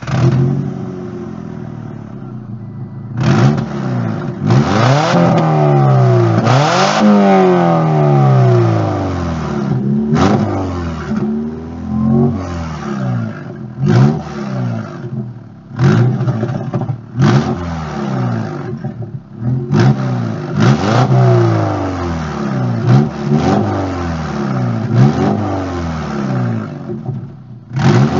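1997 Subaru Legacy's EJ22 flat-four running loud and raspy through an exhaust leak, like a straight pipe. It idles for about three seconds, then is revved repeatedly: a few longer revs first, then short throttle blips every second or two, each rising and falling back to idle.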